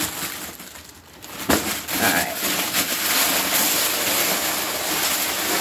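A sharp knock about a second and a half in, then a polka-dot plastic bag rustling and crinkling steadily as it is handled and pulled out of a cardboard shipping box.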